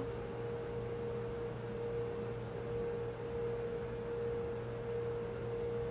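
Steady background hum holding one constant pitch over a fainter low hum, unchanging throughout.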